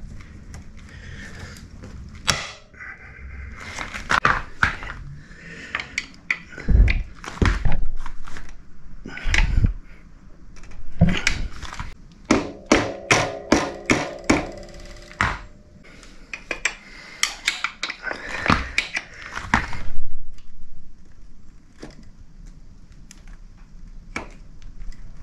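Spanner, screwdriver and bolt knocking and clicking against the rear shock absorber and swingarm mount of a Royal Enfield Interceptor 650 as the new shock is offered up and its lower bolt worked into line. Irregular knocks and taps throughout, with one metallic clank about halfway through that rings on for a couple of seconds.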